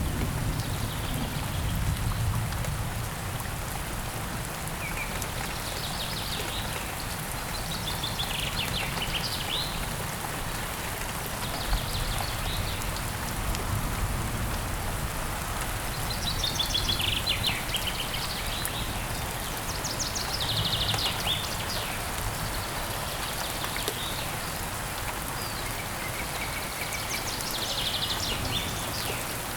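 Steady heavy rain falling, with birds calling now and then over it in short, trilled high calls.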